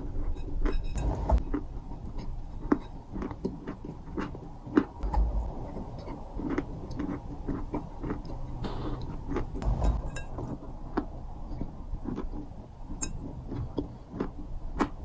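Crunchy balls being crushed: a dense, irregular run of crunching and crackling clicks, with a few heavier low thumps.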